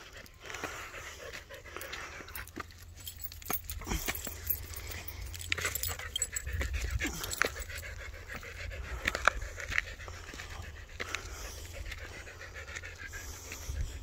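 A dog panting while climbing a steep rocky trail, with footsteps crunching on dirt and rock, and scattered clicks throughout.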